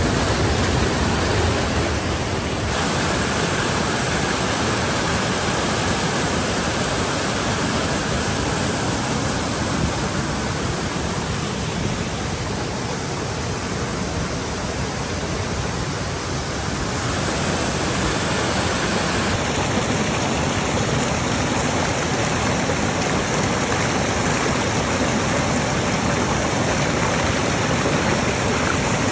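Water rushing over rocks in a waterfall cascade and rocky stream: a steady, loud, even rush of water, changing slightly in tone a few times.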